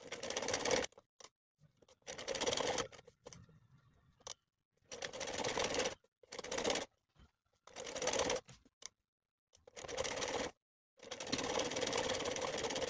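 Sewing machine stitching through fabric laid over buckram in short stop-start runs: about seven bursts of a second or less, with brief pauses between them.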